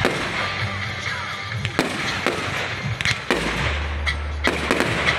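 Aerial fireworks shells bursting in a string of sharp bangs, about half a dozen, most of them in the second half.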